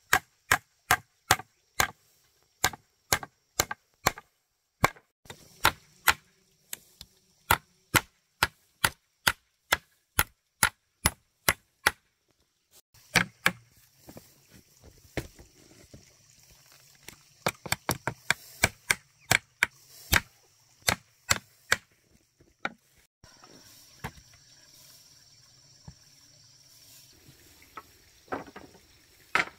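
Chopping strikes with a tool, sharp and evenly paced at about two a second. After a short pause they come irregularly, some in quick runs, then thin out to a few scattered strikes.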